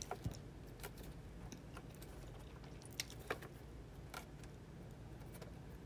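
Faint handling sounds: scattered small clicks and taps as thin tape is pressed onto a glazed ceramic platter, the sharpest click about three seconds in.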